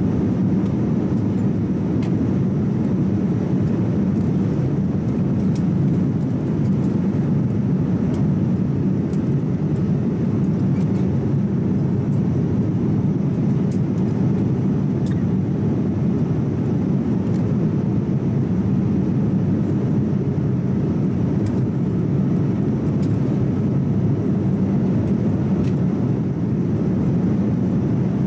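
Steady cabin drone inside a Boeing 787-10 airliner: engine and airflow noise, even and unbroken, deep in pitch.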